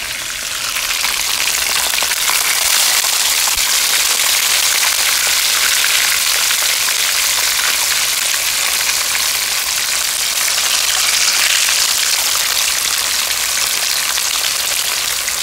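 Whole fish frying in hot oil in a frying pan: a steady, loud sizzle that grows louder about a second in.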